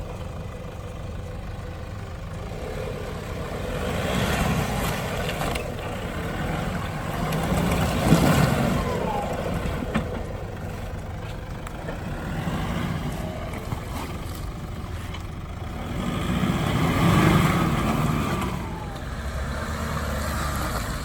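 Off-road vehicle engine running under load, swelling in revs several times, loudest about eight seconds in and again about seventeen seconds in.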